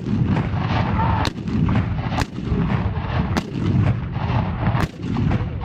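A battery of black-powder muzzle-loading field cannons firing in sequence, one gun after another: several sharp blasts about a second or so apart, the low rumble of each shot rolling on into the next.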